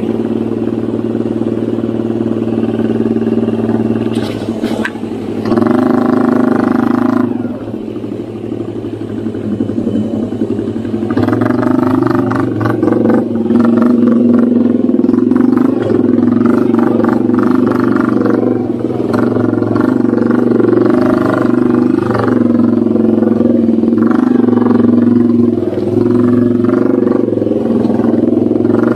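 Honda underbone motorcycle engine running under load, rising in revs about five seconds in, easing off, then working hard again from about eleven seconds on with the revs rising and falling.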